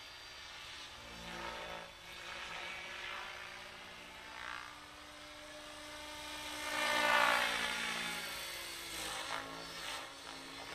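Henseleit TDR electric RC helicopter in aerobatic flight, its brushless motor and rotor blades whining at a headspeed of about 1650 rpm. The sound swells and fades with pitch bending up and down as it manoeuvres, loudest about seven seconds in.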